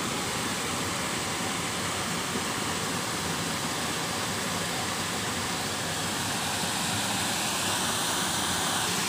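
Steady rush of water cascading over a small rocky weir into a muddy river, getting a little louder near the end.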